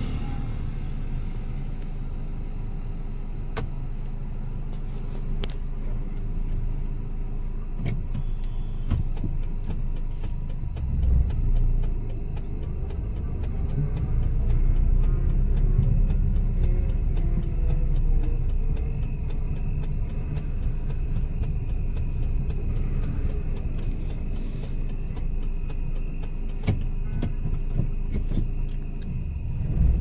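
Steady low rumble of a car's engine and tyres, heard from inside the car as it drives along a road.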